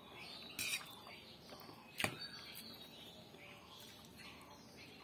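Close-up eating sounds: a metal fork stirring and lifting chow mein noodles on a plate, with one sharp click of the fork against the plate about two seconds in.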